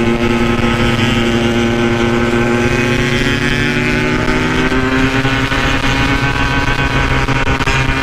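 Yamaha RX King's two-stroke single-cylinder engine running under way at a steady speed. Its pitch holds level and then creeps slightly higher in the second half.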